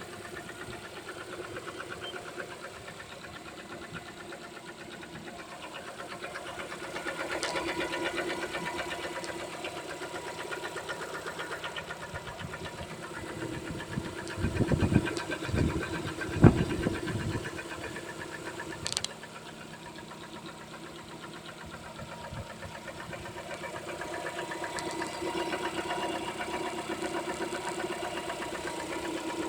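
Lada Kalina 2's engine running with a rapid, even knocking tick that follows the engine speed: the knock the owner is showing on a nearly new engine of 6,800 km. A few louder thumps stand out around the middle.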